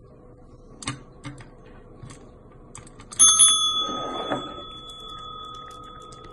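A few faint taps, then a small bell struck once a little over three seconds in, ringing out and slowly fading over about four seconds.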